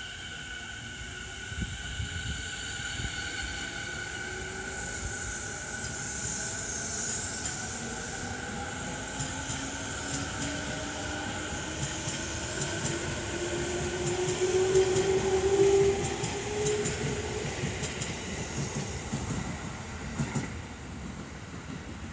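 Two electric commuter trains, an E217 series and a 209 series, passing at a station. One train's electric motor whine slowly falls in pitch as it brakes in. The other's whine rises steadily in pitch as it accelerates away and is loudest about two-thirds of the way through. Wheel-on-rail rumble and clicks run underneath.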